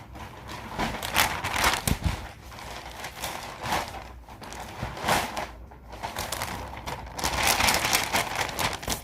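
Plastic packaging crinkling and rustling in an irregular run of crackles as it is handled and opened.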